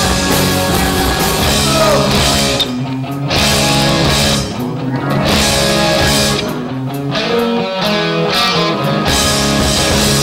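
Live rock band playing: distorted electric guitars, bass and drum kit, recorded muffled from the floor of the room. The playing stops and starts, with several brief breaks between hits.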